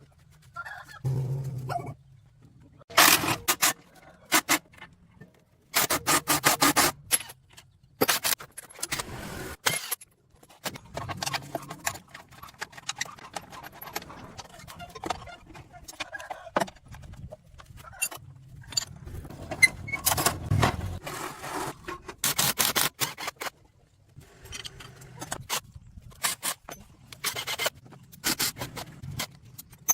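Metal clanking and scraping in irregular bursts of about a second each, from work on the worn steel parts of a farm harrow, with a low hum underneath.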